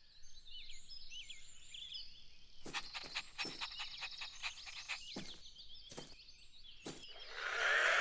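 Birds chirping in a cartoon garden ambience, with a few sharp clicks in the middle. Near the end a loud, steady whirring rises as a toy remote-controlled car starts driving.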